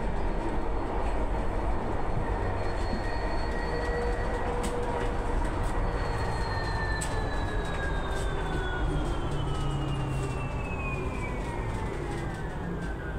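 Electric traction drive of a 2014 Solaris Urbino 18 IV Electric articulated bus, heard from inside the cabin: a whine over road rumble that holds steady for the first few seconds, then falls steadily in pitch through the second half as the bus slows.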